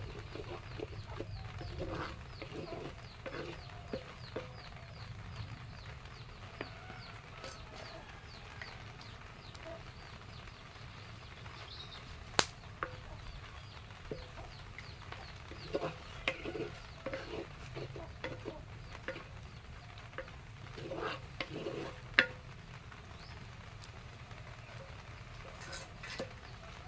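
A wooden spatula stirring and scraping food in a clay pot on a wood fire, with two sharp knocks, one about halfway through and one near the end. Chickens cluck in the background.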